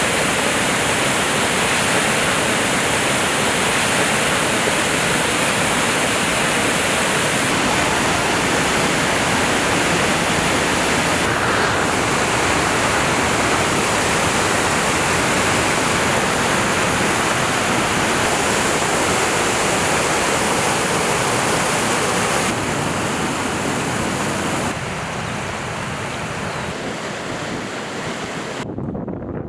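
Steady rush of a river's falling water, even and unbroken, dropping a little in level twice in the last third.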